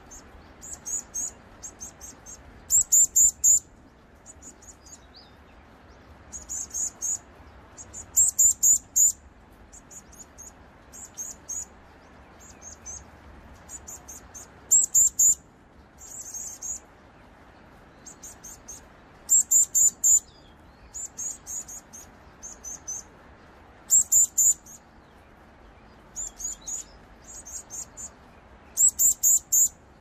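Varied tit nestling calling: very high-pitched chirps in quick runs of three to six notes, the loudest runs coming about every five seconds.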